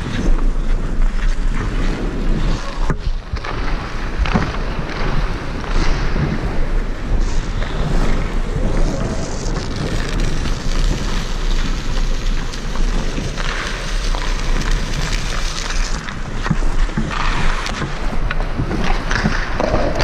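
Wind rumbling over a helmet-mounted camera's microphone while the wearer skates, with ice-skate blades scraping and hissing on the ice. A couple of louder scraping stretches come in the second half.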